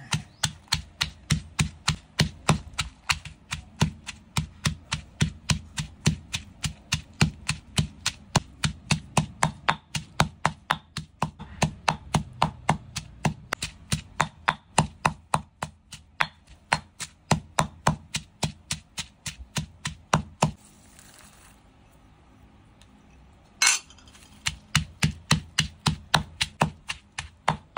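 Stone pestle pounding fresh chilies and dried shrimp in a granite mortar: steady thuds at about three to four a second. The pounding stops for about three seconds after some twenty seconds, then resumes.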